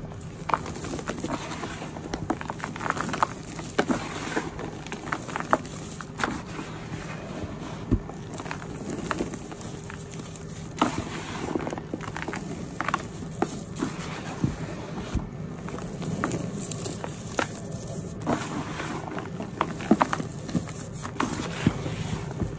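Hands crushing and crumbling clumps of dry, dusty purple powder, with an irregular run of soft crunches, crackles and sharper snaps as the clumps break apart.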